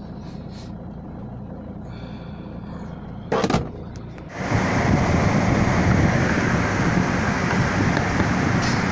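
Low, steady hum with a short knock about three and a half seconds in. Then, at a sudden cut, a loud steady noise takes over: wind and outdoor noise beside a truck-stop tyre air pump.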